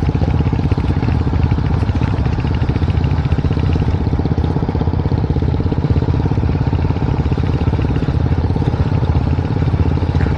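Motorcycle engine running steadily under way, its exhaust pulsing evenly, while riding a rough off-road track.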